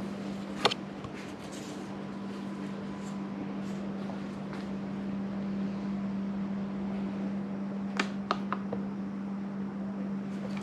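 A steady low hum, like a fan or air-conditioning unit running, with a few light clicks about a second in and again near 8 seconds.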